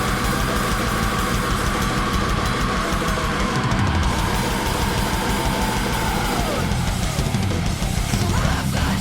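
Heavy metal intro music driven by fast, busy drum-kit playing, loud and unbroken.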